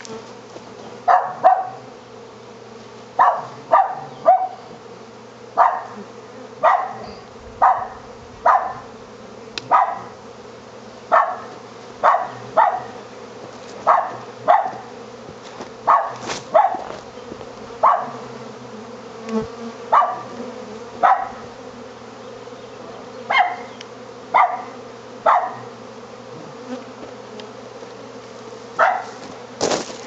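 Steady buzzing of a honey bee swarm, with a dog barking over and over, roughly once a second and often in pairs; the barks are the loudest sound.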